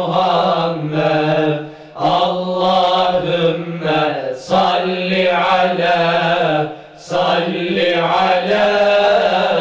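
Choir of boys and men chanting a Turkish ilahi in unison, in long sung phrases with short breaks about two seconds in and again about seven seconds in.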